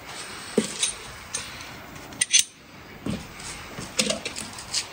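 Irregular knocks and metallic clinks of hand tools being handled on a timber beam joint, metal against metal and wood, the loudest a sharp clatter a little over two seconds in.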